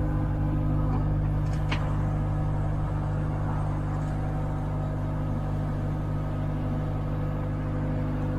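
Kubota compact diesel engine running steadily at a constant speed while digging, with one short metallic click a little under two seconds in.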